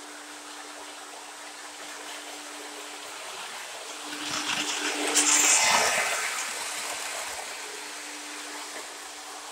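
O gauge model train running on the layout's track: a steady rushing rolling noise that swells as the train passes close, loudest around five to six seconds in, then fades. A steady low hum runs underneath.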